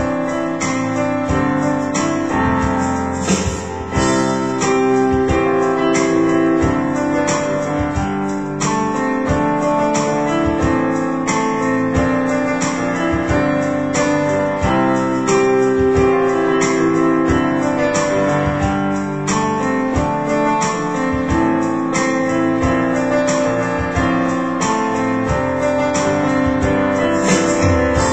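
Electronic keyboard played as a solo instrumental, with steady rhythmic chords and notes throughout and no singing.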